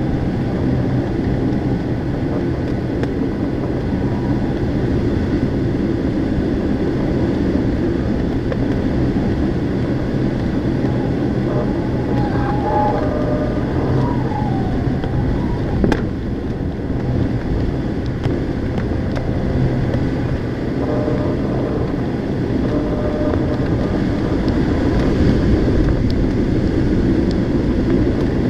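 Steady airflow noise and a low engine drone heard from a Ka-8 glider's cockpit on aerotow, with a faint wavering tone about halfway through.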